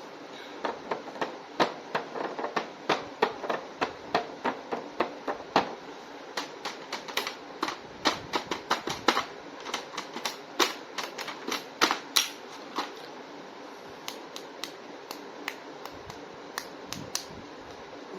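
Irregular sharp clicks and taps of plastic toy packaging being handled and opened, several a second at first, then sparser in the last few seconds.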